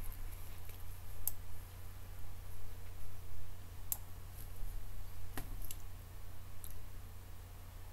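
A handful of sharp computer mouse clicks, about five spread out, over a steady low electrical hum.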